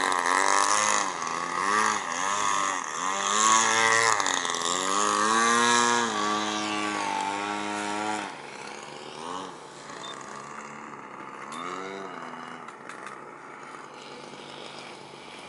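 Engine of a flying radio-controlled model airplane, its pitch repeatedly rising and falling as it manoeuvres and passes. Loud for the first eight seconds or so, then fainter with a few more brief swells.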